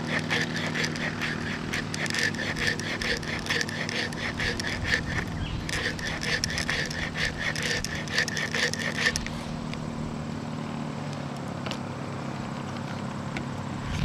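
Leatherman Signal multitool, closed, its O1 tool-steel blade spine scraping a wooden stick in repeated quick strokes and raising fine shavings; the strokes stop about nine seconds in.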